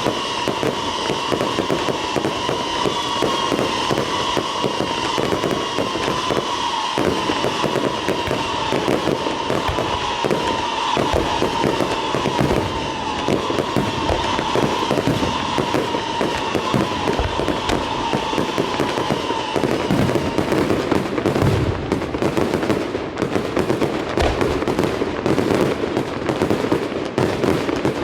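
Aerial fireworks going off in a dense, continuous run of rapid crackling bangs. A steady high tone slowly sinks in pitch under the crackling and stops about twenty seconds in.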